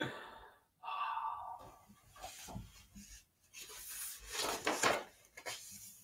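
Hardcover picture book being handled and a page turned: paper rustling and rubbing, loudest about four to five seconds in.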